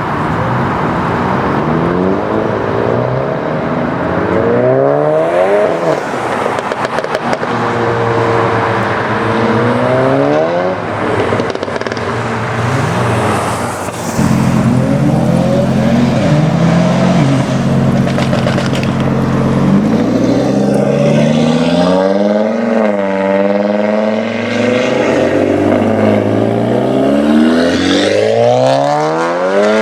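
Tuned Seat Leon ST Cupra's turbocharged 2.0-litre four-cylinder, breathing through a custom exhaust, accelerating hard several times, its pitch climbing and then dropping at each gear change. Midway the revs hold steadier for a few seconds. Around six to seven seconds in, a run of pops and crackles comes from the exhaust.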